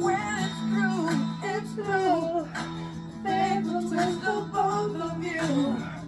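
Music: a song with a voice singing a wavering melody over sustained accompaniment.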